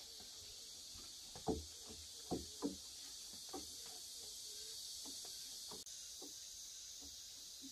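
Steady high-pitched chirring of insects, with a few short low clucks from chickens in the first few seconds, the loudest about a second and a half in.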